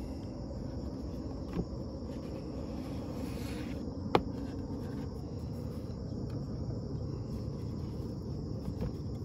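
A steady chorus of insects chirring in the background, with cardboard presentation boxes being handled: a soft knock about a second and a half in, a brief sliding rustle around three seconds, and a sharper tap about four seconds in as the green inner box comes out of the outer box.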